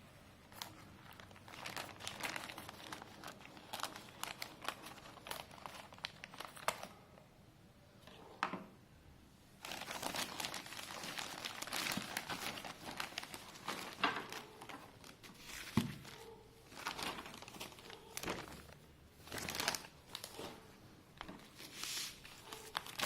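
Delivery packaging being handled and opened by hand: irregular crinkling and rustling of wrapping with some tearing, busiest for a few seconds in the middle.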